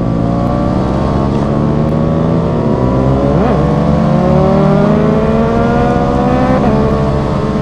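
125 cc single-cylinder motorcycle engines (KTM Duke 125 and Yamaha YZF-R125) accelerating hard, their pitch climbing steadily through the gears with upshifts about three and a half and six and a half seconds in.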